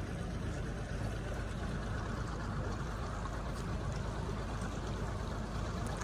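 Small boat under way at low speed: a steady low rumble with a rush of water.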